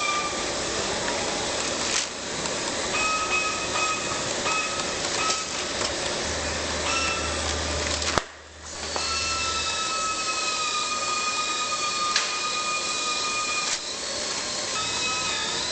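Machinery running with a steady hiss and a high whine that starts and stops several times. A sharp click comes about eight seconds in, followed by a brief drop in sound.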